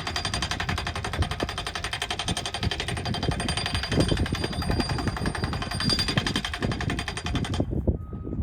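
Powered post driver hammering a fence post into the ground with rapid, evenly spaced blows, then stopping suddenly about seven and a half seconds in.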